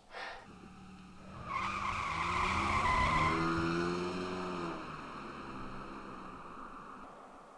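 A car driving past: engine hum and tyre noise swell about a second and a half in, peak, then fade slowly away, the pitch dropping as it goes by.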